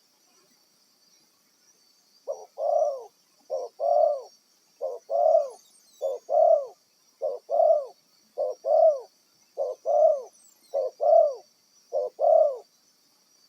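Spotted dove (tekukur) cooing a repeated two-part call, a short note then a longer arched note, nine times at about one phrase every 1.2 seconds, starting about two seconds in.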